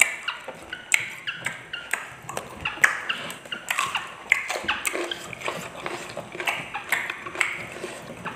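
Close-up eating sounds: wet chewing and lip smacks over a mouthful of rice and fried tempeh, heard as a run of short, irregular clicks.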